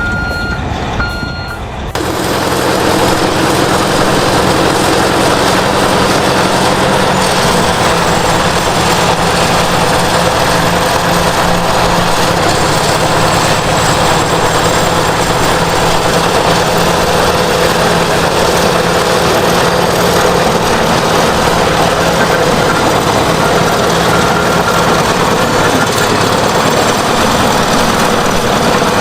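A heavy machine's reversing alarm beeping evenly for about the first two seconds, then loud, steady engine and working noise from heavy construction equipment, with faint reversing beeps again about three quarters of the way through.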